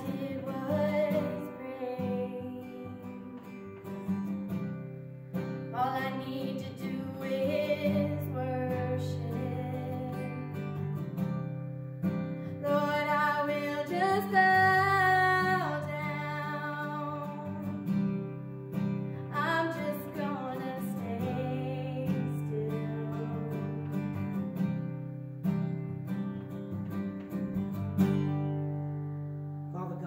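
Acoustic guitar strummed as accompaniment to a woman singing a slow worship song in phrases. Near the end a final chord is strummed and left to ring out.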